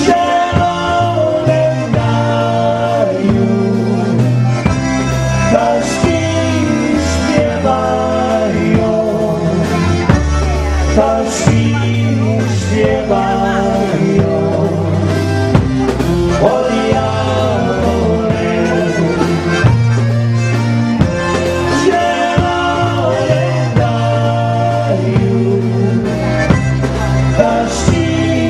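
Live dance band playing a waltz, a melody over a steady bass beat.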